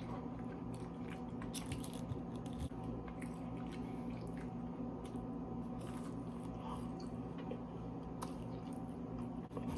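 Close-up chewing and biting of crispy fried chicken tenders, with scattered small crunches, over a steady low hum.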